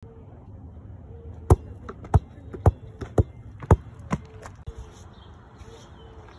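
Rubber basketball dribbled on gravel and wood chips: seven bounces about half a second apart, starting about a second and a half in, the last two fainter.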